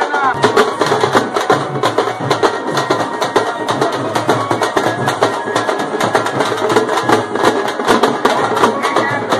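A group of large double-headed drums beaten with sticks, played fast in a dense, driving rhythm.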